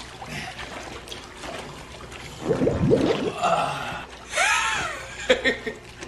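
A fart let off underwater in a hot tub: a low, wobbling, bubbling rumble through the water about two and a half seconds in. About a second later comes a higher sound whose pitch rises and then falls.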